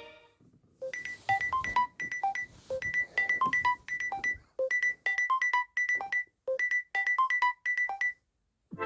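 Samsung Galaxy A36 5G ringtone: a short, bright plinking melody repeated four times, then stopping. A different ringtone starts right at the end.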